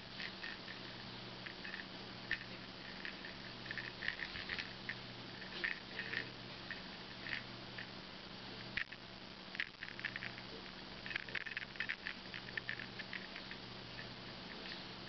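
Faint, irregular light clicks and rustles, some in quick clusters, over a steady low hum.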